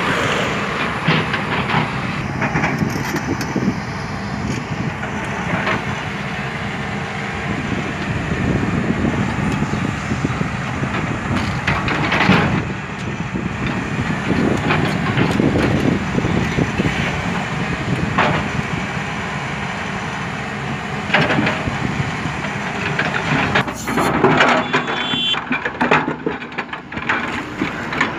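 Hydraulic crawler excavator's diesel engine running under load as it swings and dumps soil into a steel dump-truck body, the dirt pouring in as a loud rushing spill. Near the end the bucket scrapes and clatters through dirt and broken concrete slabs.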